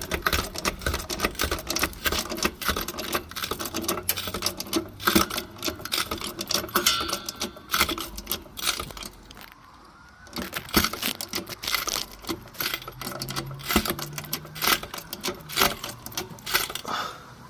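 Small car jack being worked to raise the car, making rapid, irregular metallic clicking and rattling, with a short pause about halfway through. A faint siren wails in the distance in the second half.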